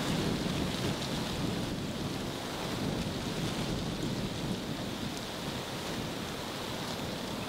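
Wind buffeting the microphone: a steady low rumbling rush with a fainter hiss above it, easing off over the last couple of seconds.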